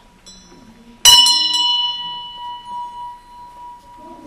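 A metal bell struck a few times in quick succession about a second in. Its ringing tone fades away over the next couple of seconds.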